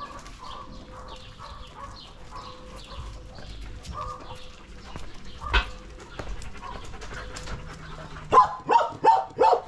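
Several domestic dogs make short scattered yips and whines, with a single sharp bark about halfway through. Near the end a dog barks repeatedly, about two to three loud barks a second.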